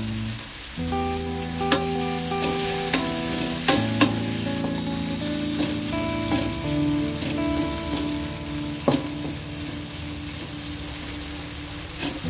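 Spice paste sizzling in oil in a non-stick wok as a wooden spatula stirs it, with a handful of sharp knocks and scrapes of the spatula against the pan. A soft background tune plays under it.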